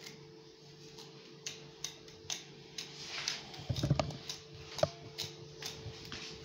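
Plastic comb scratching through a child's hair in short, quick strokes, about two a second, with a louder soft thump about four seconds in. A steady low hum runs underneath.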